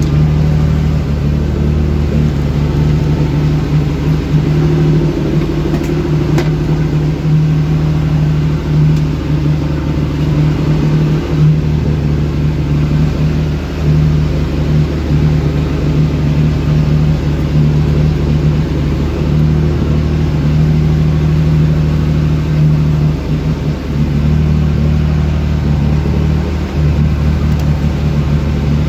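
Small fishing boat's motor running steadily under way, a constant low drone, with the rush of water and wind over it.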